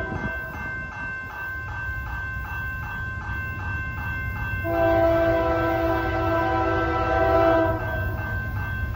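A railroad crossing bell rings about twice a second while the approaching CN freight's locomotive air horn sounds: the tail of one blast ends at the start, then a long blast of about three seconds follows from about five seconds in. A steady low rumble of the oncoming train runs underneath.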